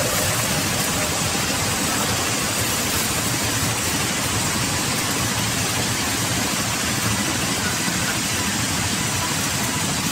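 Large vertical band saw running in a sawmill, a steady, even machine din as wood is fed through the blade.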